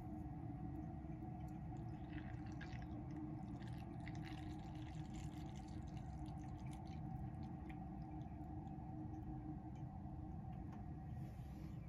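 Frothed milk pouring from a jug into a porcelain teacup onto matcha powder: a faint, uneven trickling splash, over a steady low hum.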